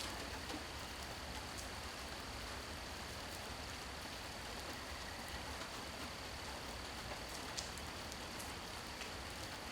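Steady rain falling, an even hiss with scattered drops ticking, one sharper drip about seven and a half seconds in. A faint steady high tone runs under it.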